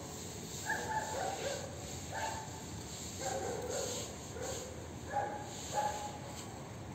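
An animal's short, high calls repeated about nine times at uneven intervals, yips of the kind a small dog makes.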